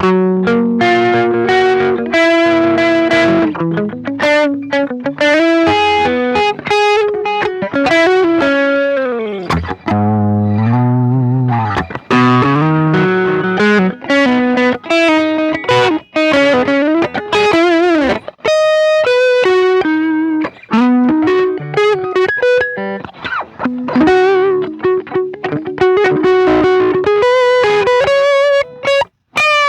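Electric guitar played through a Ross compressor reissue and overdrive pedals: a clean-edged, lightly driven lead line of single sustained notes with frequent string bends.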